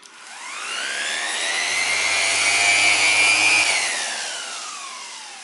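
Bosch PEX 300 AE random orbital sander running with no sanding disc fitted and off the work: its motor whine rises as it spins up, holds for about a second and a half at full speed, then falls away as it winds down.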